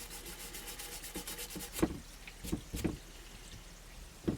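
A fast, even run of scratchy rubbing strokes on a rifle part, stopping about a second and a half in, then a few light knocks and clicks as the parts are handled.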